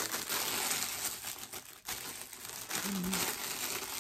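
Clear plastic bags crinkling and rustling as hands handle them, with a brief pause a little before two seconds in.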